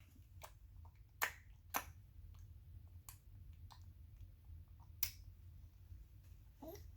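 A series of sharp, single clicks at irregular intervals, loudest twice a little over a second in and once about five seconds in. A short pitched vocal sound follows near the end.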